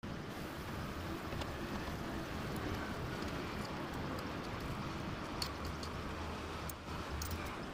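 Metal spoon and fork clinking a few times against a steel cooking pot as stuffed cuttlefish are turned in their simmering sauce. The clinks come over a steady low background noise.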